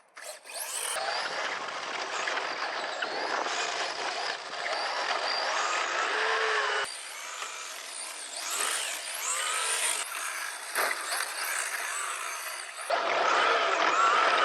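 Electric 1:10 Team Associated Apex2 Sport RC car (Datsun 240Z body) driving hard: its motor whines, rising and falling in pitch with the throttle, over the hiss of its tyres on concrete. The sound changes abruptly a few times.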